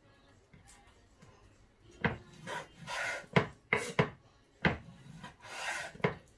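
Kitchen knife slicing raw chicken breast on a wooden cutting board. From about two seconds in come short rubbing strokes as the blade draws through the meat and several sharp knocks of the blade on the wood.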